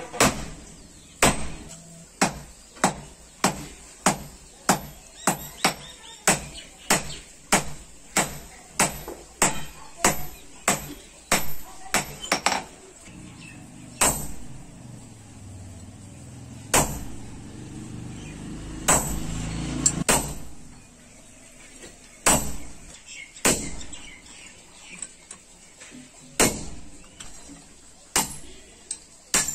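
Hammers striking a billhook blank on an anvil during hand forging: a steady run of sharp metallic blows, about one and a half a second, for the first dozen seconds. Then a few scattered blows with a few seconds of low rumbling noise, and slower, uneven strikes near the end.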